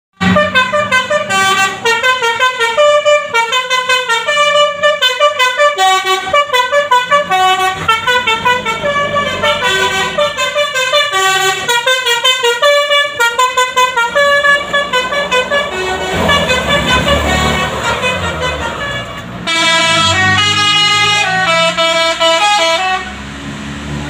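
Basuri telolet horns on tour buses playing quick tunes of short stepping notes, the multi-tone 'telolet' melody. About two-thirds of the way through, the notes give way to a noisier stretch of held chords, then the quick tune resumes.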